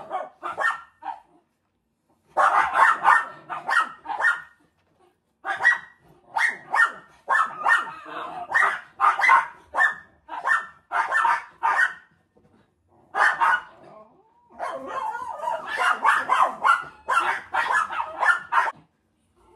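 Miniature schnauzer barking repeatedly: runs of short, sharp barks, several a second, broken by brief pauses.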